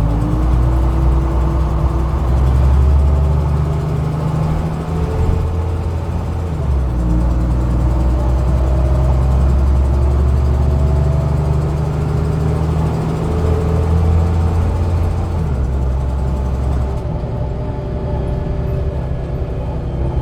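Dennis Dominator double-decker bus running and pulling along. Its engine note steps up and down through several gear changes, with a whine that rises repeatedly over it.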